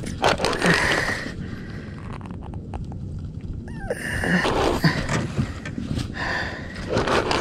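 An overhead fishing reel being cranked in three short bursts of whirring and rustling, each about a second long, as gloved hands work the rod and line close to the microphone, over a steady low rumble.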